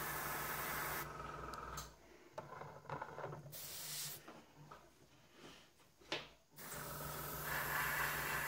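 Airbrush spraying paint, a steady hiss over the low hum of its air compressor, that stops about a second in. A few small clicks and scrapes follow as the model and airbrush are handled, and the airbrush hiss and compressor hum start again about seven seconds in.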